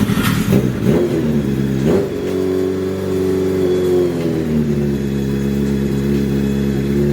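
Kawasaki air-cooled inline-four motorcycle engine with a megaphone silencer, revved briefly in the first two seconds, then settling into a steady idle that eases slightly lower midway.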